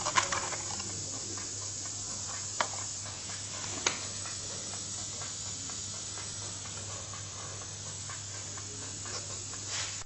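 Steady background hiss with a low hum, broken by a few sharp taps and clicks as cardboard parts boxes are handled, the clearest just after the start and at about two and a half and four seconds in.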